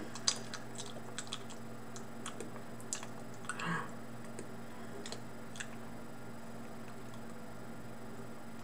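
Metal spoon clicking and scraping against a small tin can of wet dog food, a scatter of short sharp clicks mostly in the first half, over a steady low hum.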